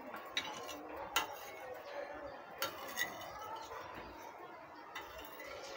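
Metal spoon clinking and scraping on a glass tabletop in a handful of sharp taps spread over several seconds, as it is pushed under paper banknotes to scoop them up.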